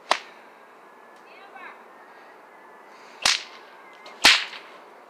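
A 10-foot, 16-plait kangaroo-hide bullwhip cracking three times: once right at the start, then twice about a second apart near the end, the last crack the loudest.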